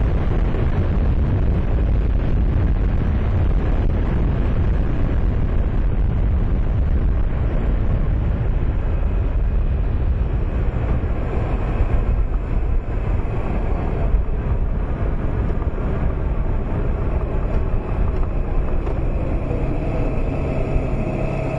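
Heavy wind noise on the microphone of a 2008 Honda Nighthawk 250 motorcycle riding at road speed, with the bike's engine running underneath. Near the end the wind eases and a steady engine hum comes through as the bike slows.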